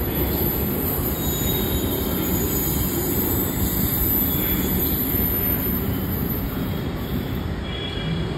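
Hyderabad Metro train pulling out of an elevated station and running away along the track: a steady rumble of wheels on rail, with a thin high-pitched tone over it that stops near the end.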